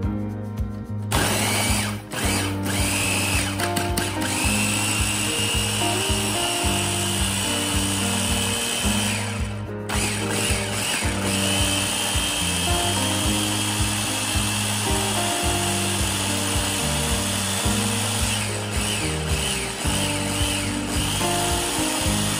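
Ninja food chopper's electric motor running under hand pressure, blending green onions in liquid: a steady whir with a high whine. It starts about a second in, stops briefly about ten seconds in, then runs on.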